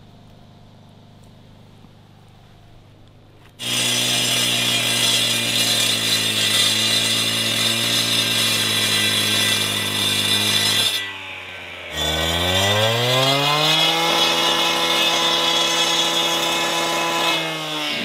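Stihl two-stroke cut-off saw with a 14-inch diamond blade cutting a relief joint into a fresh concrete slab, wet-cut with water from a hose. It starts loudly after a few seconds of low hum, eases off briefly about two-thirds of the way in, then revs back up with a rising pitch and runs steady and high.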